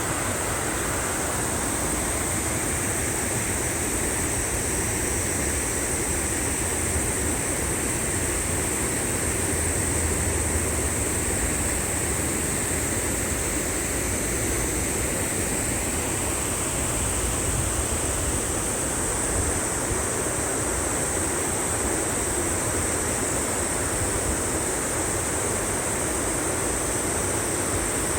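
Steady rush of water in a mountain valley stream, with a constant high hiss over it.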